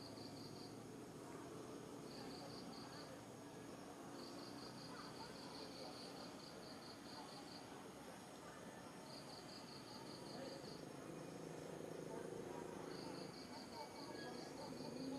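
Insects chirping faintly in high, pulsed trills, each trill lasting one to three seconds and repeating after short gaps, over a low, steady background murmur.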